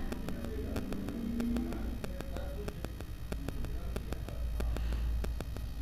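Spatula stirring and scraping a dry, crumbly semolina, dry-fruit and powdered-sugar filling in a nonstick pan, heard as light scrapes and many short clicks over a steady low hum.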